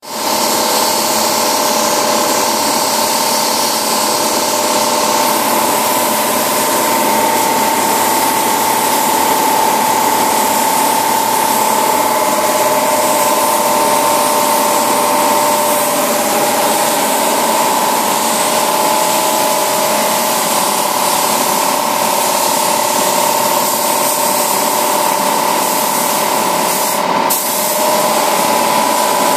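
Compressed-air paint spray gun hissing steadily as it sprays a car's body panels, with a steady whine under the hiss. The spray cuts out for a moment near the end.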